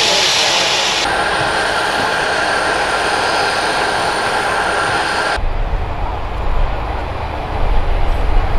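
Aircraft engine noise: a loud, steady rushing with a high whine. It changes abruptly about a second in and again about five seconds in, ending as a low, gusty rumble.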